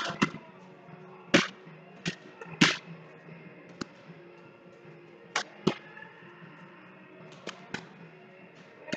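Gloved punches landing on a freestanding rubber torso training dummy: about a dozen sharp, irregularly spaced smacks and thuds, the two loudest within the first three seconds.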